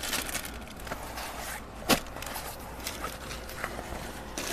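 Handling noises as a fabric seat-back organizer is unfolded, with one sharp click about two seconds in.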